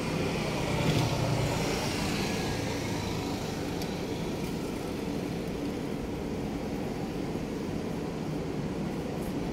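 Road traffic noise from a multi-lane city road, steady throughout and swelling briefly about a second in.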